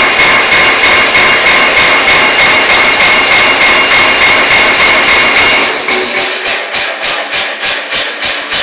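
A motorised pneumatic forging hammer running, its ram striking at an even pace of about three blows a second over a steady mechanical noise with a high whistle. About six seconds in the whistle and the noise stop and the blows stand out clearly on their own.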